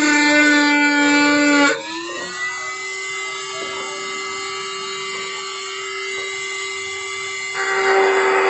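Flexible-shaft rotary tool whining as its bit grinds the plastic of a motorcycle front fender. The whine is loud and slightly lower-pitched while the bit bites, then quieter and higher about two seconds in as it runs free off the work. It turns loud and gritty again near the end when the bit goes back onto the plastic.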